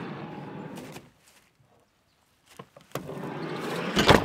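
Camper van's sliding side door running along its track, which stops about a second in. It runs again and ends in a loud slam shortly before the end.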